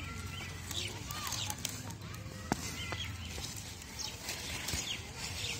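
Small birds chirping over and over, quick high chirps, over a low steady hum. A single sharp click about two and a half seconds in.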